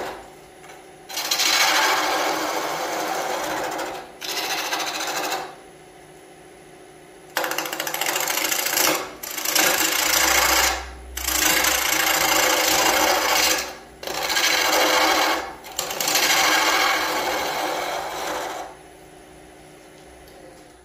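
Wood lathe spinning an off-centre scoop blank while a gouge takes roughing cuts on it, interrupted cuts as the off-balance wood comes round against the tool. There are about six rasping cutting passes of one to three seconds each, with pauses between them where only the lathe's steady motor hum and a faint high whine are heard.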